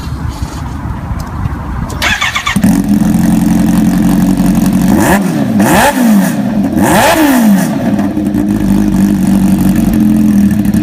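Kawasaki Ninja H2's supercharged inline-four cranked by its starter and catching about two and a half seconds in, then idling. It is blipped twice with quick rises and falls in revs, then settles back to a steady idle.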